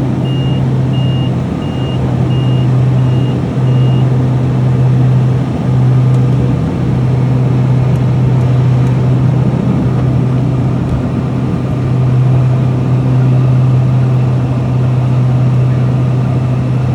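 Steady low drone of a Piper Cheyenne's twin turboprop engines and propellers heard in the cockpit. A high repeating beep, about two a second, sounds over it and stops about four seconds in.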